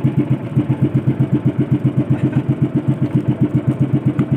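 Small boat engine idling with a steady, rapid chug of about eight beats a second.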